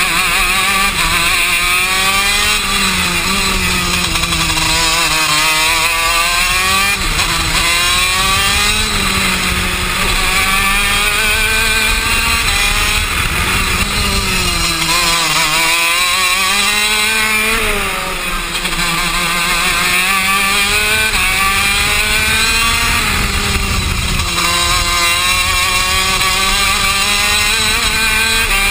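KZ2 shifter kart's 125 cc two-stroke engine at racing speed, its pitch climbing in repeated sweeps and dropping back as it goes through the gears and slows for corners, with a brief lull about two-thirds of the way through. Wind noise rushes under the engine.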